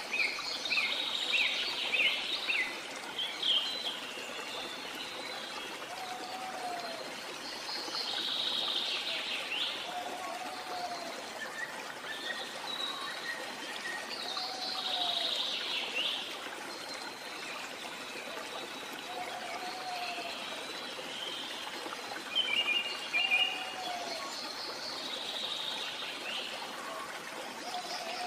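Nature ambience of birds chirping and calling over a steady trickle of running water, with a short lower call recurring every few seconds.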